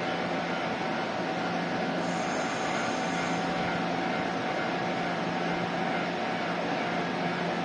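Electric train running: a steady rumbling noise with a constant hum held underneath.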